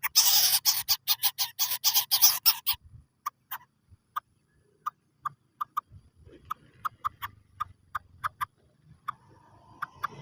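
Lesser coucal calling: a fast run of short, sharp clicking notes for about three seconds, then single notes spaced further apart at one pitch, quickening again near the end.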